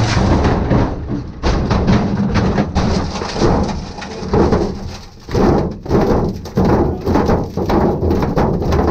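Inside the cabin of a Volvo 940 rally car: the engine running low and steady while the car rolls slowly over gravel, with irregular knocking and rattling throughout.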